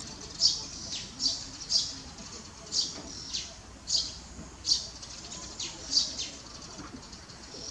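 A bird chirping over and over: short high chirps that each drop in pitch, coming irregularly about every half second to a second.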